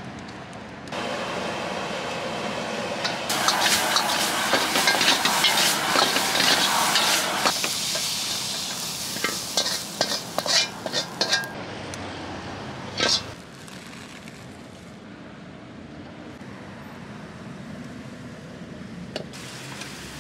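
Food sizzling in a hot wok, with a metal wok ladle scraping and clinking against the pan. The clatter comes thick in the first half; after that the frying settles to a quieter, steady hiss.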